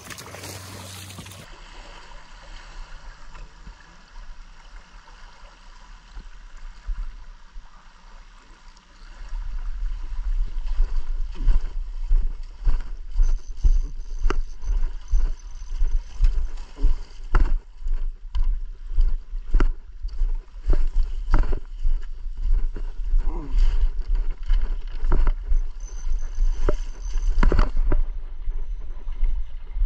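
Rushing river water with low, gusty rumbling buffets on an action camera's microphone, which turn loud and pulsing from about nine seconds in, with many irregular knocks.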